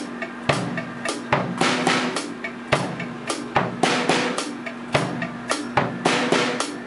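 Drum kit played in a steady beat, with kick drum and snare strokes.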